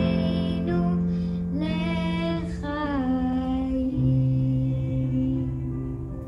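A woman and a child singing a slow Jewish liturgical melody together over an instrumental accompaniment with long held notes, heard through laptop speakers from a video call. The last notes die away near the end.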